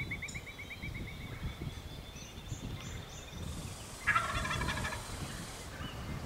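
Wild turkey gobbler gobbling once, a loud rattling call about four seconds in that lasts about a second and a half. A songbird's fast, high trill sounds at the start.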